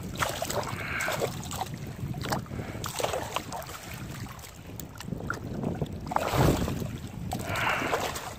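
Wind rumbling on the microphone, with scattered small clicks and knocks and a louder gust about six seconds in.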